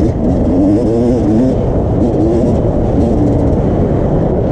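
Yamaha YZ250 two-stroke dirt bike engine being ridden hard, its pitch rising and falling over and over with the throttle, over a dense low rumble.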